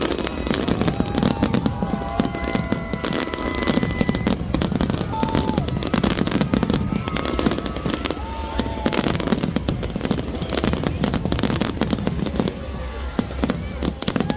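Large fireworks display going off in a dense, continuous barrage of rapid bangs and crackles, with faint voices and pitched whistling tones mixed in.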